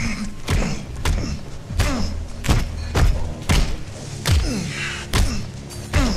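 Blows landing on a man lying on the floor, film fight sound effects: about a dozen heavy thuds, roughly two every second, most trailed by a short falling sound.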